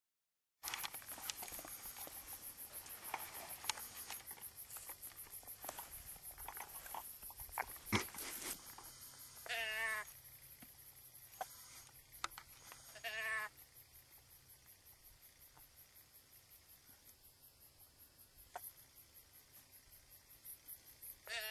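Deer bleat call blown three times, each a short wavering bleat: about nine and a half seconds in, about thirteen seconds in, and at the very end. It is used to make moving whitetail deer stop. Crickets chirp steadily throughout, with scattered clicks and rustles in the first half.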